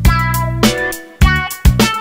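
Instrumental background music with a regular beat and held pitched notes.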